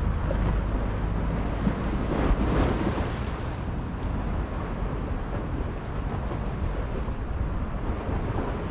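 Wind buffeting the microphone over the wash of sea on the shore, with a louder rush about two seconds in.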